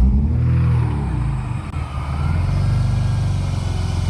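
BMW M50 straight-six just after starting, its revs flaring up and then sagging about a second in, dipping low and recovering into an uneven idle. The unstable idle is the sign of a vacuum leak, which the owner traces to the brake booster line.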